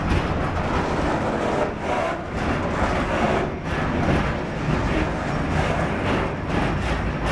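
Freight train pulling away: covered hopper wagons rolling past, their wheels rumbling and clattering steadily on the rails.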